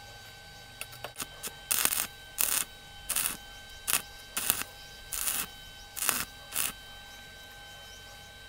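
Electric arc welder tacking rebar joints: a few light clicks, then about eight short bursts of the arc, each under half a second.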